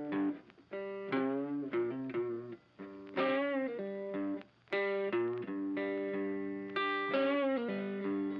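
Background music: an electric guitar plays a melody of held, wavering notes.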